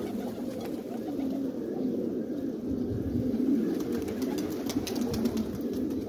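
A loft full of domestic pigeons cooing, many low calls overlapping without a break. A run of short sharp clicks comes in over the last couple of seconds.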